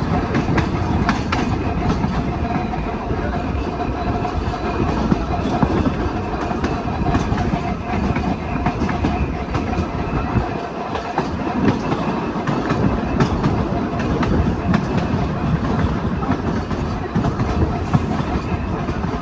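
A 1926 St. Louis Car Company double-truck Birney streetcar rolling along the track, heard from on board: a steady rumble with the wheels clicking irregularly over rail joints.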